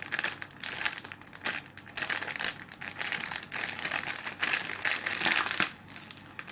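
Plastic packaging crinkling and rustling as it is handled, in a quick, uneven run of rustles.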